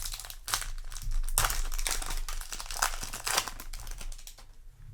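Crinkling of a foil Yu-Gi-Oh! booster pack wrapper being handled, in irregular rustles that are densest in the middle.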